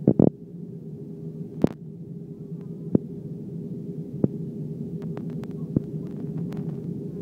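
Steady low drone of an Airbus A321 cabin in flight, heard from a window seat: engine and airflow noise with a hum. A scattering of sharp clicks and knocks cuts through it, the loudest just after the start and at about a second and a half in.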